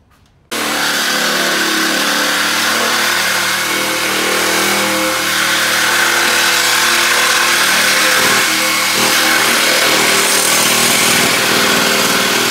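Yellow cordless power tool running steadily as it cuts into the truck's exhaust pipe to remove the catalytic converter. It starts suddenly about half a second in and is loud.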